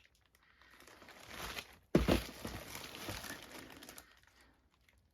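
A sack full of potatoes being handled: the bag rustles and crinkles, drops with a thump about two seconds in, then crinkles on as it settles.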